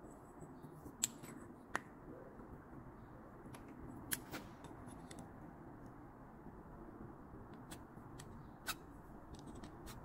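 Steel vernier caliper being slid and set against a machined metal block: a few light, sharp metallic clicks and taps over a faint steady background hum.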